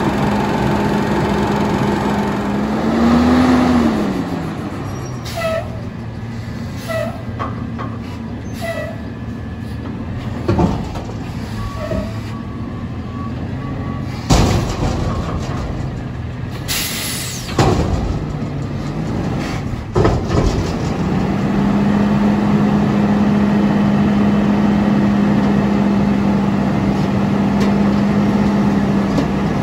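Autocar ACX Heil Freedom front-load garbage truck working a dumpster. The engine runs with a brief rev early on. Several loud bangs come in the middle, with a burst of air hiss among them. For the last third the engine is held at steady, raised revs to drive the hydraulic arms lifting the container.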